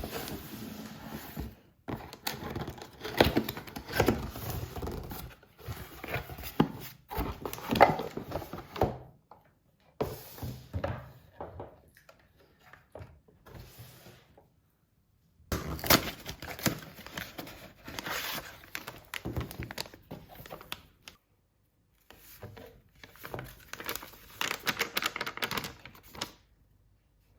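Packaging being handled and opened: crinkling and tearing with knocks and thunks, in several stretches broken by short silences.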